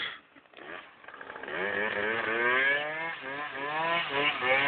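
Small motorcycle engine coming in about a second in and revving up, its pitch rising in several sweeps and growing louder as it accelerates and passes close by.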